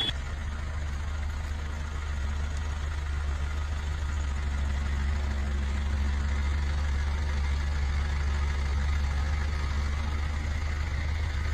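JCB 3DX backhoe loader's diesel engine running steadily at a low, even speed.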